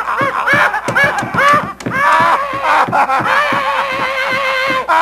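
A man laughing loudly in quick, rapid-fire bursts. About two seconds in, this turns into one long vocal cry held on a nearly steady pitch for about three seconds.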